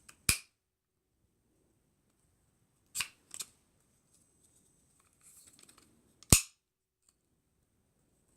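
Sharp clicks of Ruger 10/22 Takedown receiver parts being fitted together during reassembly: one near the start, a quick pair about three seconds in, and the loudest a little past six seconds in, with faint handling rustle before it.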